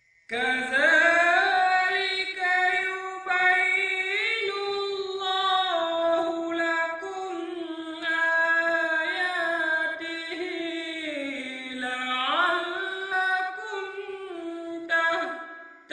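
A man reciting the Qur'an as melodic, melismatic chant (tilawah in the maqam style). A long run of ornamented phrases begins about half a second in, with the voice held high and wavering. It swoops down low around twelve seconds in, climbs again and fades just before the end.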